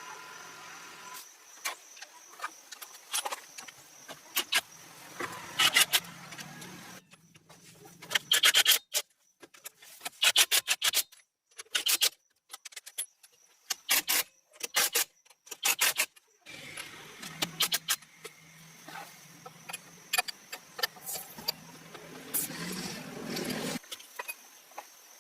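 Repeated sharp metallic clicks and knocks of hand tools working on a car, irregular and in quick clusters. A low steady hum runs under the first and last parts and stops in the middle, where the clicks stand alone.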